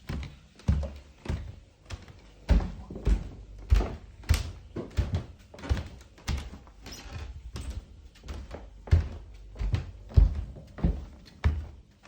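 Footsteps walking at a steady pace, about two dull thuds a second.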